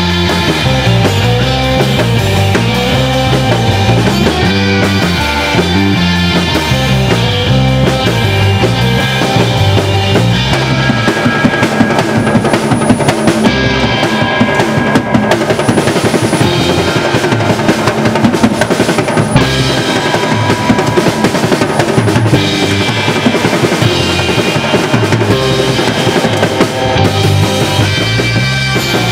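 Live instrumental rock band: electric guitar and electric bass over a drum kit. Near the middle the drums take over with fast rolling tom and snare beats, then the bass line returns.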